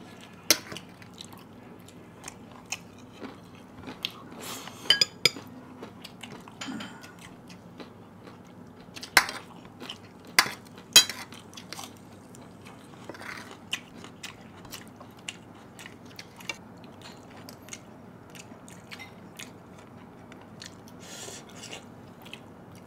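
Close-miked eating of pork curry: chewing and biting, with scattered sharp clicks and clinks of cutlery and dishes, a few louder ones near the middle.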